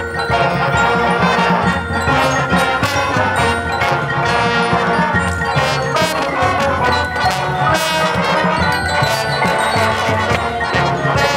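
Marching band playing live: brass over mallet percussion, with sharp percussion strikes and pulsing low notes.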